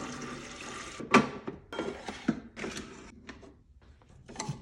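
Kitchen handling noises while coffee is being made: about a second of hissing, then a series of irregular knocks and clunks as things are set down and moved about.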